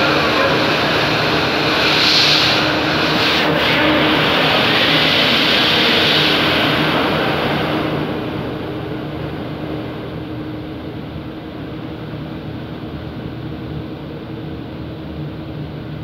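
ABC three-layer co-extrusion blown film line running: a steady machine drone with a low hum and a strong air hiss, the hiss dropping away and the whole sound growing quieter about eight seconds in.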